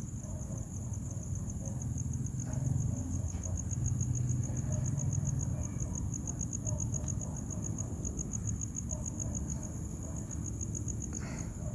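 Insects, cricket-like, trilling steadily with a high, rapidly and evenly pulsing chirp, over a low rumble.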